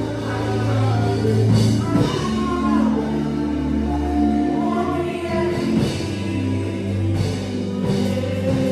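Gospel music: voices singing together over an instrumental backing with held bass notes that change every second or so.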